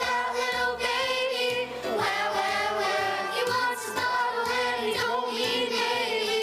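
Children's choir singing with instrumental accompaniment.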